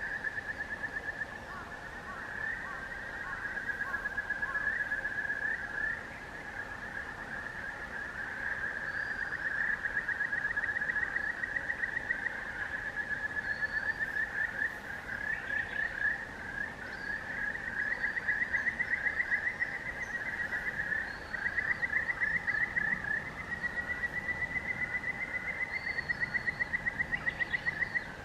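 A chorus of frogs trilling: many rapid pulsed trills overlapping without a break, with a few faint high bird chirps above them.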